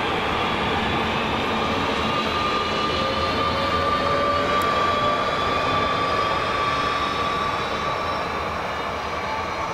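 Regional electric multiple unit pulling away, with wheel-on-rail rumble and its traction motors whining, the whine rising slowly in pitch as it gathers speed. The sound fades near the end.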